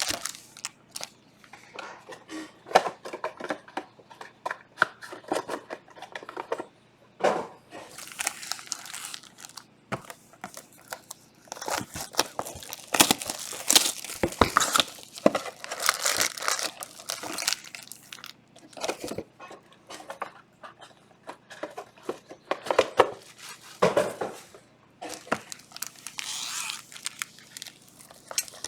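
Plastic shrink-wrap and packaging on trading-card boxes being torn open and crinkled by hand, in irregular bursts of crackling and ripping with short pauses.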